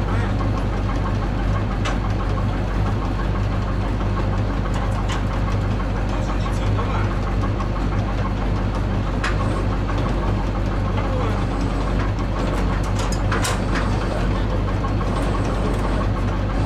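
A large truck engine idling steadily, with a few short metallic clanks of work on the truck.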